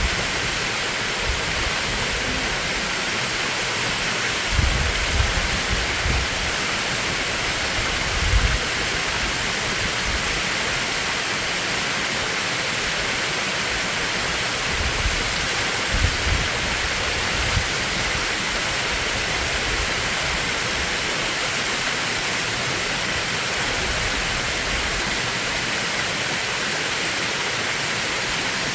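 Mountain stream rushing steadily over rocks in a valley, with a few brief low thumps in the middle.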